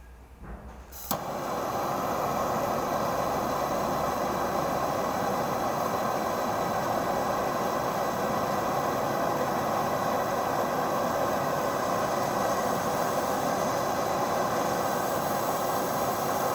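Blowtorch lit with a sharp click about a second in, then burning with a steady hiss while it heats copper washers red hot for annealing.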